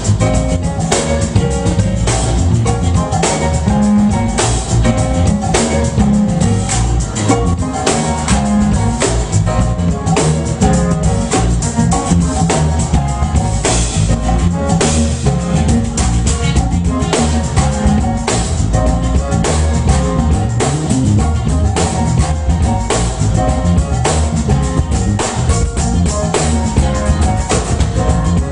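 Live band playing an instrumental groove: a drum kit keeps a steady beat under electric guitar and keyboard.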